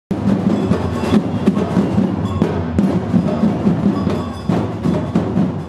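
Batucada-style percussion ensemble playing a fast, steady rhythm on drums, with metallic bell-like tones ringing over them. The playing stops about 5.7 s in, leaving a fading room echo.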